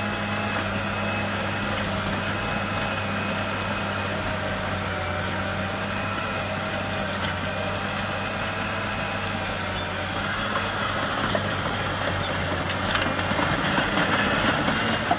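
Caterpillar 963C tracked loader's diesel engine running steadily under load while the loader pushes dirt. It grows louder and harsher over the last few seconds as the loaded bucket is raised.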